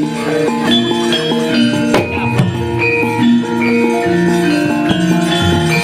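Javanese gamelan ensemble playing: struck bronze metallophones ring out overlapping notes in a steady flow, with a sharp knock about two seconds in.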